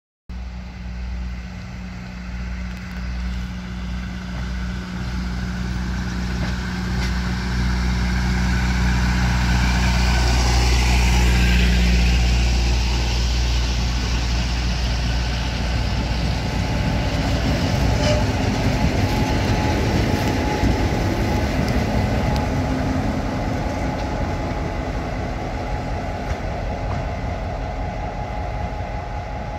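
EMD GP38 diesel-electric locomotive going by with a track-inspection car in tow: a steady low diesel engine drone that grows louder toward its closest pass about ten seconds in, then engine and steel wheels on rail as the train rolls by and approaches again.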